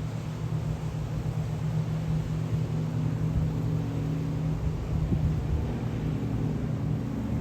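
Airplane engines droning overhead: a steady low hum with a slight shift in pitch partway through.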